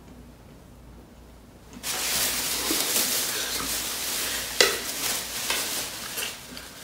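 Thin plastic shopping bags rustling and crinkling as they are pulled open and handled, starting about two seconds in, with one sharper crackle a little past the middle.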